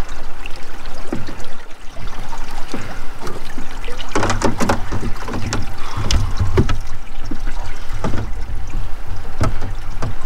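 Water splashing and sloshing as a person wades waist-deep alongside a small canoe-shaped boat, with scattered knocks and clatter that bunch up around the middle.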